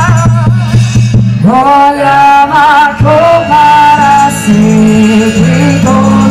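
Loud music with a singing voice. A sliding, wavering melody runs over a steady bass line.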